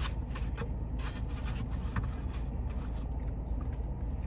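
Close-up chewing of a crispy fried chicken sandwich: short crunchy clicks scattered through, over a steady low rumble.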